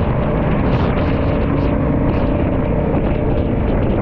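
Royal Enfield Classic 350 motorcycle cruising along a highway: steady engine and wind noise picked up by the handlebar-mounted camera.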